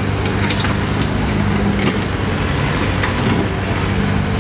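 The giant robot arm's engine and hydraulics run with a steady low hum as the claw presses down into a crushed car wreck. A few short sharp cracks from the wreck sound about half a second and one second in, and again near three seconds.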